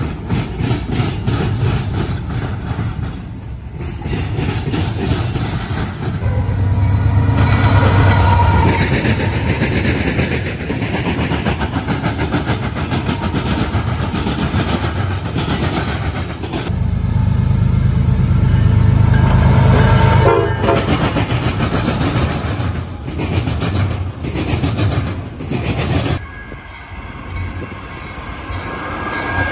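Freight trains pulled by several diesel-electric locomotives passing close by, engines running and wheels clattering over the rails, in a series of abrupt cuts. A train horn sounds near the end.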